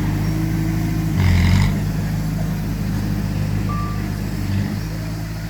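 Heavy earthmoving machinery engines running steadily, with a short loud hiss-like burst about a second in. A single short reversing-alarm beep sounds near the end.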